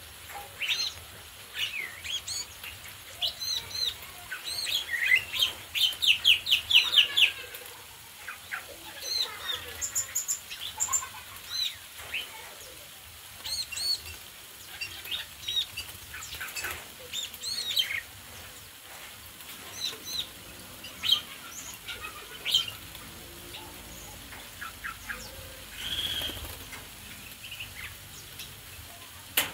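A mixed group of small caged aviary birds chirping and calling, many short chirps and whistles overlapping, with a fast run of chirps about five to seven seconds in.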